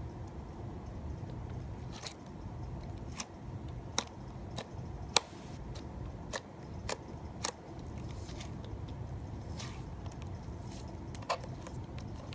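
Creamy slime being stretched, poked and squished by hand, giving about ten scattered sharp clicks and pops over a low steady hum; the loudest pop comes about five seconds in.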